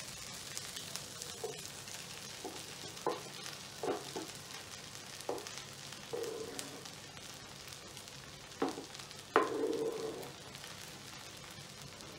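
Oil sizzling in a frying pan of idli pieces and onions as torn bread is pushed off a wooden chopping board into it with a spatula. A series of short knocks and scrapes from the spatula against the board and pan; the loudest is a longer scrape about nine seconds in.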